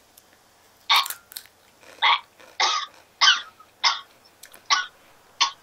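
A person coughing repeatedly: a run of about seven short coughs, roughly one every two-thirds of a second.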